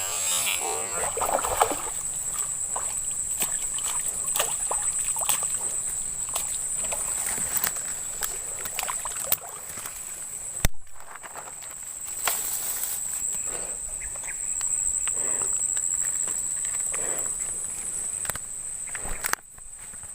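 Outdoor waterside ambience dominated by a steady high-pitched insect drone, with scattered short clicks and knocks throughout. The sound cuts out sharply for a moment about halfway through.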